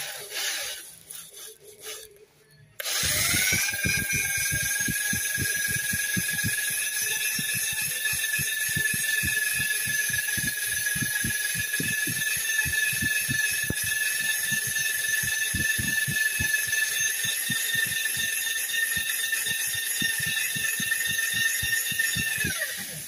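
Power-driven glaze-breaking hone working a cylinder bore of a Simca Aronde engine block: the motor spins up about three seconds in, runs with a steady high whine and an irregular rapid clatter from the stones in the bore, then winds down just before the end.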